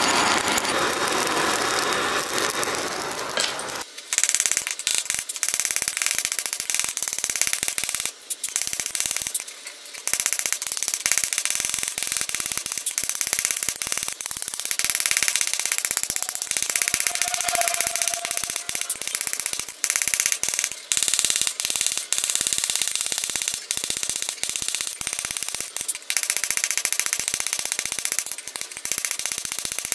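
A charcoal forge fire with its air blast rushing for the first few seconds. Then a hand hammer strikes red-hot O1 tool steel on an anvil in rapid, continuous blows, forging the knife blade.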